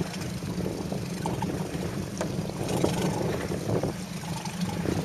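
Steady wind and water noise aboard a small spectator boat on the lake, with a continuous low rumble and light splashing crackle.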